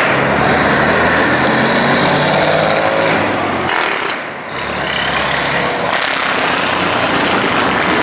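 Vintage Brockway diesel truck tractors driving past one after another, their engines pulling loudly with a note that climbs gently over the first few seconds. About four seconds in the sound dips briefly before the next truck's engine takes over.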